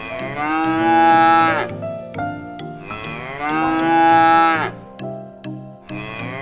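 Cow mooing: two long moos, each about a second and a half, falling in pitch at the end, with a third starting right at the end.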